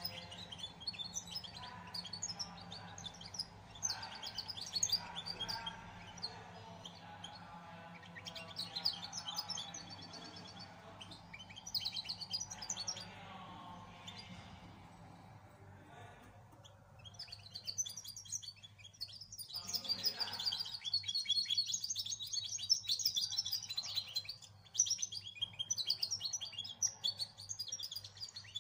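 Young common chaffinch singing a practice song: repeated high, trilled phrases in bouts, with a longer run of song in the second half. A faint low steady hum lies underneath.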